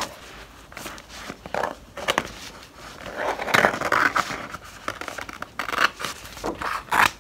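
Scissors cutting out stickers from a sheet of sticker paper: irregular snips with the paper rustling as it is turned, busiest about halfway through and again near the end.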